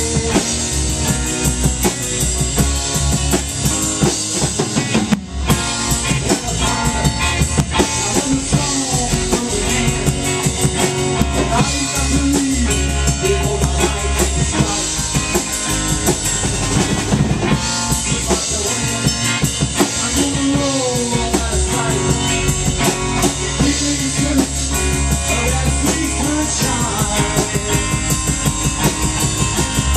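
A rock band playing live: drum kit keeping a steady beat under bass, electric and acoustic guitars, in an instrumental passage without singing. A melodic line slides up and down in pitch over the chords.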